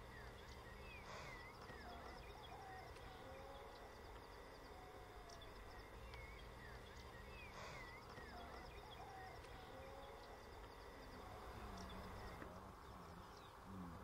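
Faint grassland ambience: insects trilling steadily on a high note while birds give short whistled calls now and then, over a low steady rumble.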